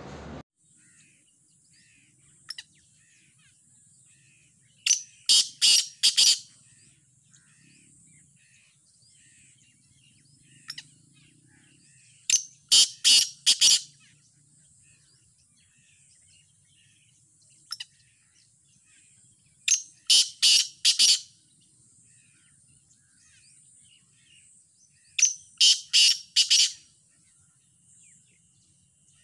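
Caged male black francolin calling: four phrases of four or five rapid loud notes, about seven seconds apart, with single notes between them. Faint twittering of small birds and a steady high hiss lie underneath.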